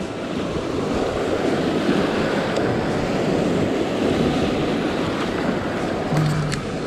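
Sea waves breaking and washing over a rocky shoreline, with wind buffeting the microphone.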